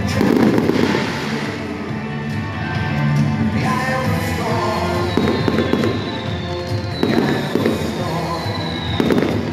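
Aerial fireworks shells launching and bursting in repeated booms, with music playing underneath.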